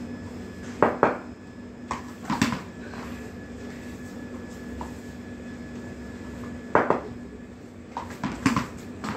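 Sharp knocks in close pairs a few seconds apart: a tennis ball bouncing on a hard floor and being struck by a wooden cricket bat, echoing in a small hard-walled room, over a steady low hum.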